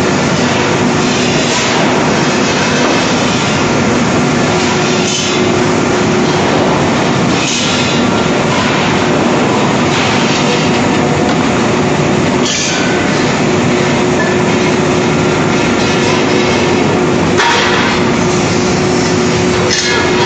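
QPW40 gas-cylinder shot blasting machine running: a loud, steady mechanical noise with a constant hum. A few sharp knocks come several seconds apart.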